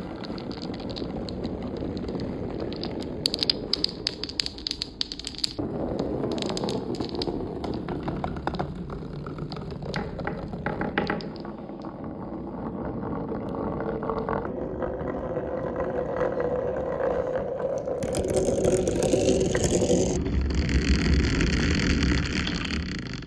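Marbles rolling and clattering down a homemade marble run: a steady rolling rumble with runs of sharp clicks as the marbles knock against each other and the track. The rolling sound changes character several times as the marbles pass onto different sections of the course.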